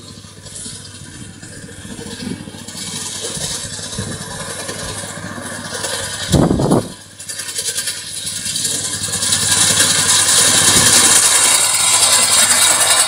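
Engine of an alfalfa mowing machine running steadily, with a brief loud burst a little past halfway; the sound grows louder and hissier through the second half.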